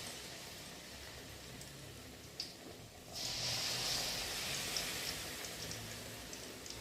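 Banana fritters sizzling in hot frying oil, a steady hiss with small crackles. The sizzle dies down for a moment, a sharp click sounds about two and a half seconds in, and just after three seconds it swells again.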